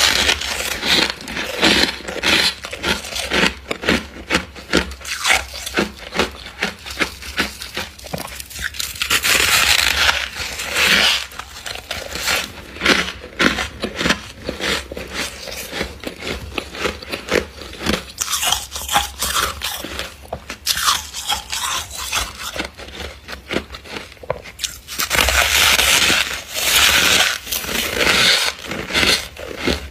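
Thick humidifier frost being crushed in the hands and bitten: a dense run of crisp crunches and crackles, with two longer grainy stretches, about 9 s in and again near the end, as the frost is crumbled.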